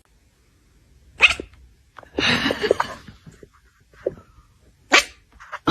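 A pet animal's short vocal sounds, four in a few seconds, the second lasting about a second and the others brief and sharp.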